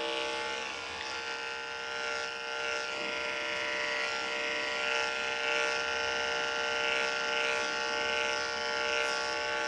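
Andis 5-speed corded dog clipper with a #10 blade and an Oster attachment comb, running steadily as it is worked through the dog's coat. A constant motor hum sits under a hiss that swells and fades with the passes.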